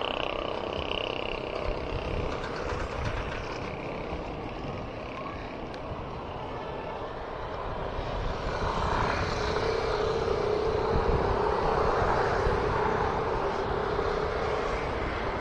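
Wind buffeting the microphone and road noise on a moving bicycle. From about halfway a motor vehicle's steady engine hum grows louder alongside.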